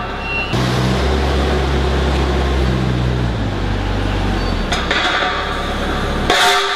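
Forklift running as it lowers a load of steel pipes: a steady hum with hiss that stops after about four seconds, followed by two knocks.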